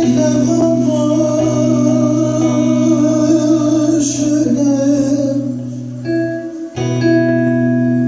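A man singing a Turkish folk song (türkü) with long held notes, accompanying himself on a plucked string instrument. The sound dips briefly about six and a half seconds in, then the singing and playing carry on.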